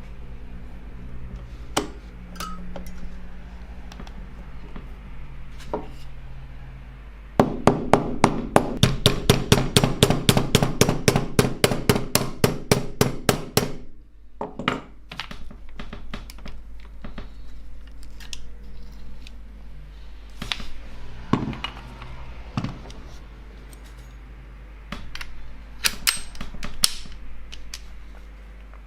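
Metal workshop noises: scattered knocks and taps, with a run of rapid, evenly spaced clicking strikes, about five or six a second, lasting some six seconds in the middle.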